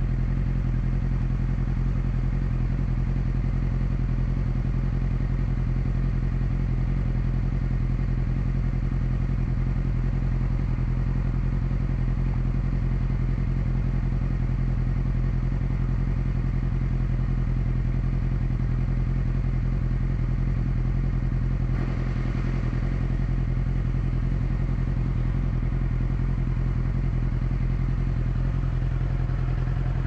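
Sport-bike engine running steadily at a constant pitch, with no revving. A brief click comes about two-thirds of the way through.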